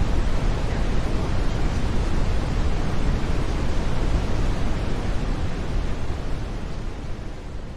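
Brown noise: a steady, deep hiss weighted toward the low end, fading out gradually over the last couple of seconds.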